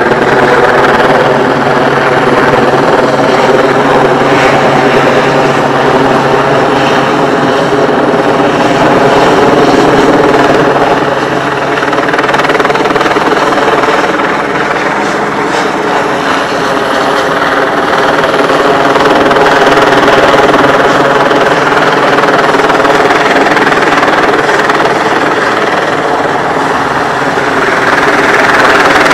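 Helicopter flying low overhead, its rotor and engine running steadily, the sound swelling and easing a little as it moves and growing louder near the end.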